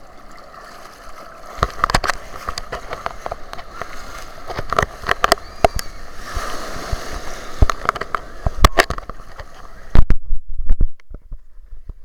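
Sea water sloshing and splashing around a handheld camera held at the surface in the surf, with many sharp knocks and bumps as water hits the microphone. About ten seconds in, the sound turns muffled with heavy low thumps as the camera goes under the water.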